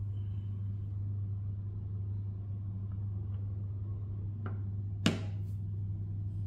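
A steady low hum, with one sharp click about five seconds in.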